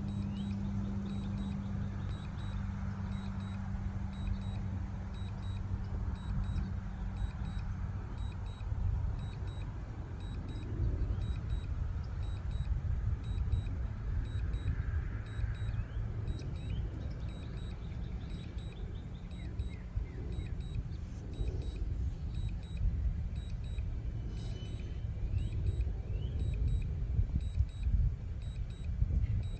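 Steady low rumble with a faint high beep repeating about twice a second; a low hum underneath fades out about eight seconds in.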